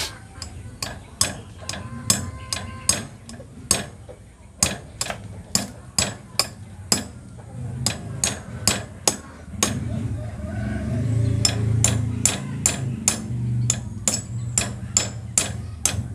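A hammer driving a nail into a motorcycle tire: a long run of sharp blows, about two to three a second, with short pauses. The tire is a homemade airless one built from old tire casings, and it is being nailed to show that it cannot go flat. A low hum rises under the blows in the middle.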